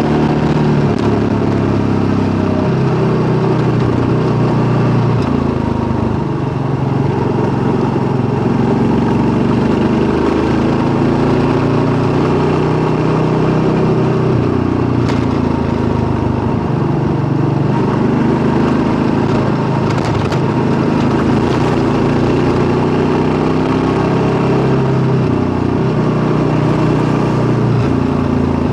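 Kawasaki KLR650's single-cylinder four-stroke engine running as the motorcycle rides along, its pitch stepping up and down with throttle and gear changes.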